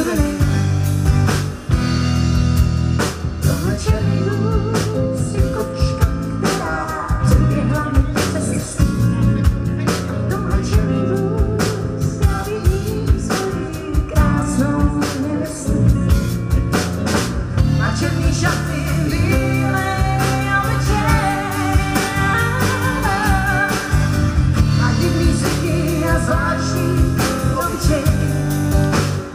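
Live band playing a blues song: drum kit keeping a steady beat, bass, acoustic and electric guitars, with a woman singing.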